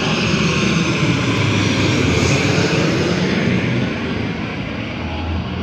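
ATR 72-600 turboprop airliner's Pratt & Whitney PW127 engines and propellers running loud, with a steady low propeller drone under the engine noise. The sound is loudest about two seconds in, then eases off a little.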